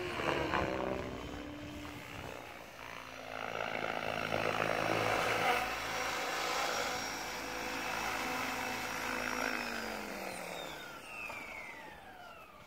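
Goblin 570 electric RC helicopter's rotor blades and brushless motor running with a droning whine that swells and eases as it flies low. Over the last couple of seconds the pitch falls steadily and the sound fades as the rotor spools down.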